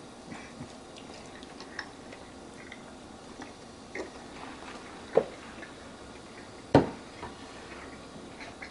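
A person chewing and eating a grilled chicken tenderloin: scattered soft mouth clicks and smacks, with two sharper, louder clicks about five and seven seconds in.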